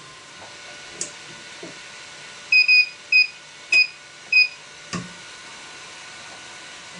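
A run of five short, high electronic beeps at one pitch, the first two nearly joined. There is a click shortly before them and a sharper click just after. A steady low machine hum runs underneath.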